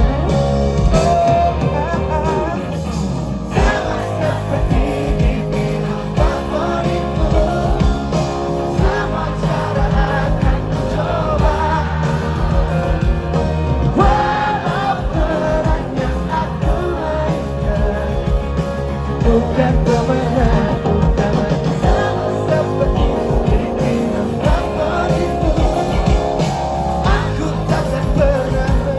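Pop-rock band playing live, with guitars, bass and drums and voices singing.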